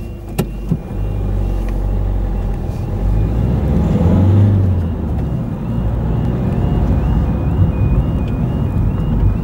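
Car driving at road speed, its engine and tyres giving a steady low rumble. Over it a level crossing's two-tone warning alarm sounds ahead, its alternating high notes becoming clearer in the second half: the warning that a train is approaching and the barriers are coming down.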